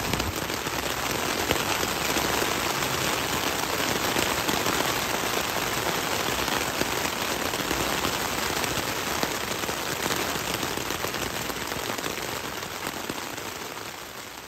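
Heavy rain falling on the fly of a Naturehike Cloud-Up 2 tent, heard from inside the tent as a dense, steady patter. It fades a little near the end.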